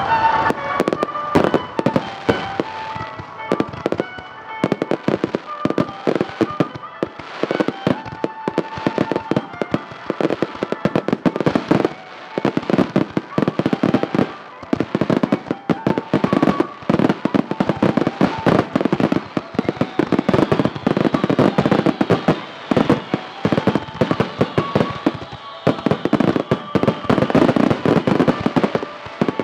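Aerial fireworks bursting in a rapid, dense barrage of bangs and crackling, with music playing underneath.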